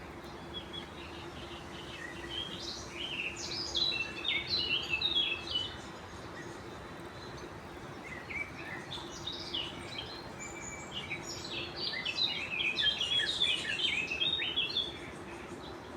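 A songbird singing two long bouts of quick, varied chirping notes, about two seconds in and again from about eight seconds in, over a faint steady low hum.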